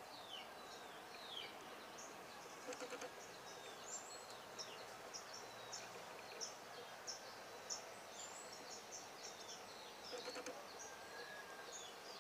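Faint outdoor ambience of birds calling: many short high chirps and some downward-sweeping notes, with a run of evenly repeated high notes through the middle, over a steady hiss.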